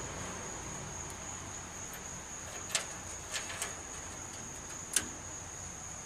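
A steady high-pitched insect drone runs throughout. Over it come a few light clicks, the sharpest about three seconds in and near the end, as the metal temperature probes and their cables knock against the pellet grill's steel side while they are fed through its access port.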